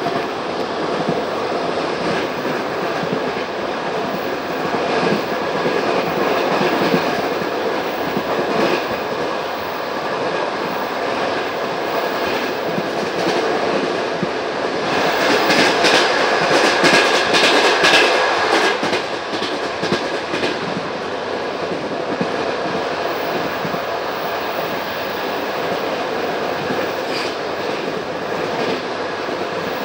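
Passenger coach of a moving train heard from aboard, its wheels clattering over the rail joints with a steady running rumble. The noise swells for a few seconds a little past halfway, then settles again.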